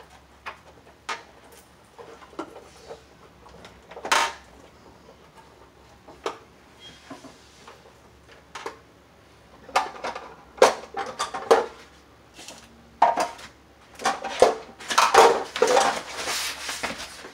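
Scattered light clicks and clatter of hands working wires, a wire nut and hand tools on the metal top of an electric water heater, sparse at first and busier and louder in the second half.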